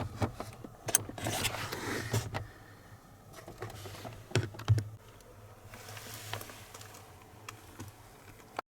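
Handling noises: a run of sharp clicks and knocks with some rustling, thinning out after about two and a half seconds, over a faint steady low hum; the sound cuts off abruptly near the end.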